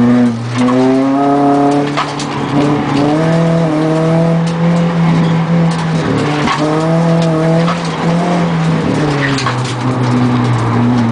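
Car engine heard from inside the cabin during an autoslalom run, revving up and easing off three times, about half a second in, around three seconds and around six and a half seconds, as the driver accelerates between the cones.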